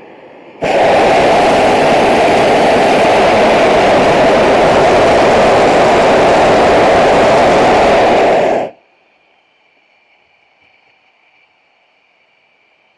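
Hot air balloon propane burner firing in one long blast of about eight seconds, starting abruptly just under a second in and cutting off suddenly.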